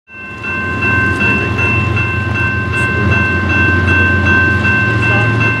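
Level-crossing warning bell ringing continuously with a steady metallic tone, over the low rumble of approaching diesel freight locomotives.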